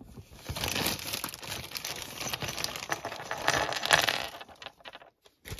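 Clear plastic bag crinkling as it is handled and emptied, with small hard plastic toy pieces clicking as they drop onto the tabletop; it dies down near the end.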